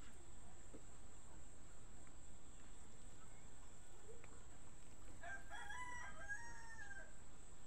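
A rooster crows once, a single call of about two seconds starting about five seconds in, over a steady low background hiss.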